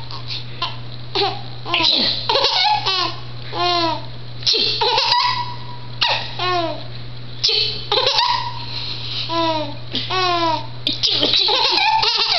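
A person laughing in repeated bouts, each a quick run of short high-pitched 'ha's that step down in pitch, over a steady low hum.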